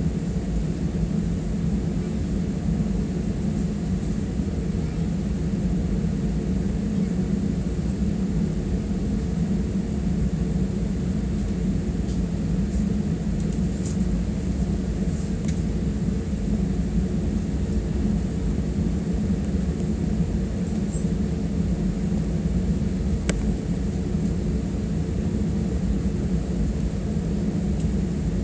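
Steady low rumble of an Airbus A320's jet engines at low power as the airliner taxis, heard from inside the passenger cabin, with a few faint clicks.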